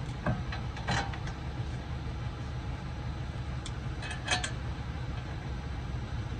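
A few light metallic clinks and clicks as the brake caliper bracket bolts and caliper are handled and threaded in by hand, the loudest a little past the middle, over a steady low hum.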